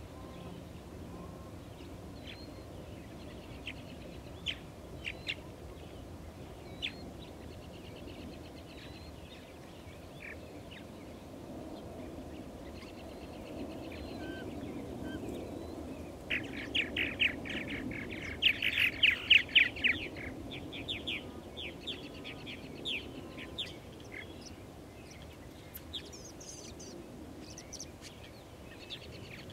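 Purple martins calling at a nesting colony: scattered short chirps, then a quick run of rapid, chattering chirps about two-thirds of the way through, the loudest part. A steady low rumble runs underneath.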